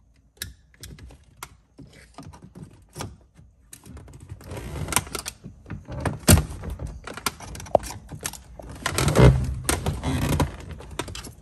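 Plastic center-console trim of a BMW E46 M3 being fitted and pressed into place by hand: light scattered clicks at first, then a busier clatter of plastic knocks and rattles from about four seconds in, with sharper knocks a little past six seconds and about nine seconds in.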